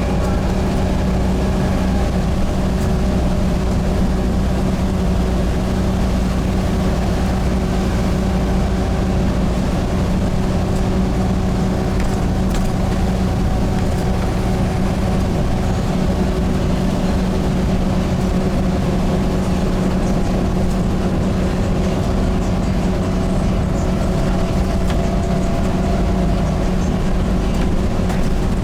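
Volvo B7TL double-decker bus's six-cylinder diesel engine running with a steady, unchanging note, heard from inside the bus, together with a constant low rumble.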